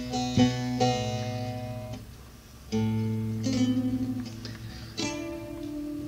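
Solo saz (Turkish long-necked lute) playing a free improvisation: single plucked notes ringing over a low drone string, with a softer lull about two seconds in before a new phrase is struck.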